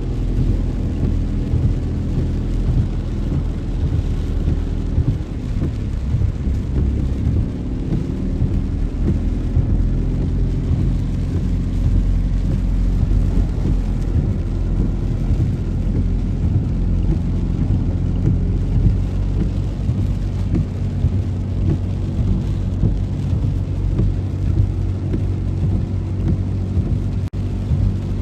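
Motor vehicle engines running through a flooded street, a steady low hum over the hiss of heavy rain and water.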